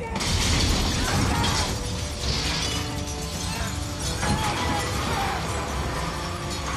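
Plate glass shattering and showering down as a van crashes through a lobby's glass front, starting suddenly and loudly, with film score music underneath.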